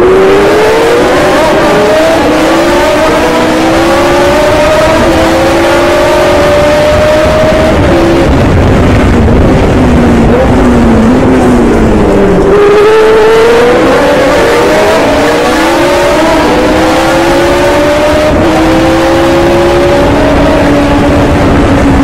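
Ford-Cosworth DFV V8 of a 1974 Hesketh 308 Formula One car, heard from the cockpit at racing speed. Its revs climb through a run of quick upshifts, fall in stepped downshifts about a third of the way in, then climb through the gears again just past halfway.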